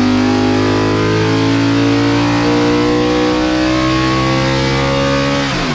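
Ford C3 NASCAR V8 racing engine making a dyno pull at wide-open throttle against load, its pitch climbing slowly through the sweep from about 6,000 to 8,000 rpm. Near the end the revs drop sharply as the pull ends. The pull is run with ignition timing advanced to 35 degrees.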